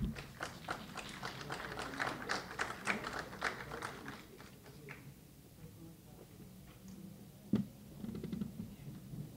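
Sparse applause from a small group, a few people clapping for about four seconds and then dying away, with a single louder knock near the end.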